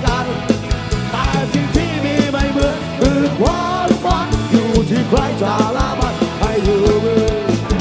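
Thai-language rock song: a singer's voice over a full band with a steady drum beat.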